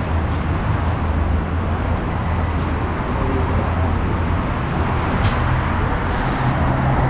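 Steady low rumble of road traffic from a multi-lane expressway below, with a few faint ticks.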